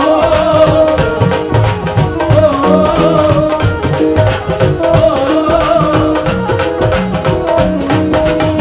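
Live Punjabi folk-pop band music: an instrumental passage with a steady drum beat under a melodic lead line.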